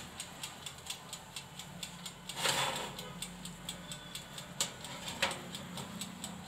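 Fast, even mechanical ticking, about four ticks a second, typical of a clockwork oven timer, over a steady low hum. About two and a half seconds in there is a brief rustling scrape, followed by a couple of sharper clicks.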